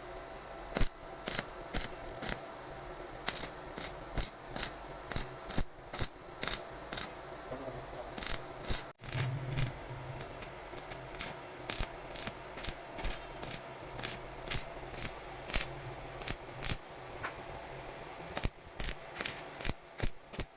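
A long run of sharp, short clicks or taps, about two a second, over a steady low hum, with a brief pause about nine seconds in.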